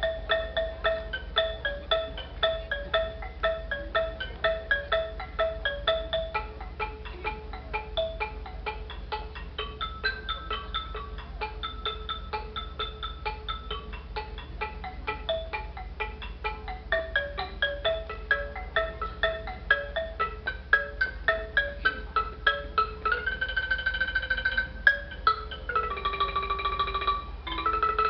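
Ponglang, the wooden log xylophone of northeast Thailand, played with mallets in quick, evenly spaced strokes that repeat a short melody. About 23 seconds in, long held notes of a wind instrument come in over the strokes.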